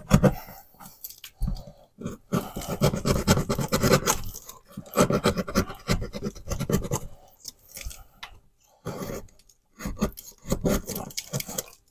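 A blade cutting and scraping through drywall in irregular rasping strokes with short pauses, trimming away a leftover nub of sheetrock.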